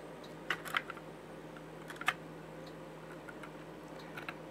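Light clicks and taps of a small screwdriver on a 3D-printed plastic camera case as it is worked and handled: a few quick clicks about half a second in, a sharper click about two seconds in, and faint ticks near the end.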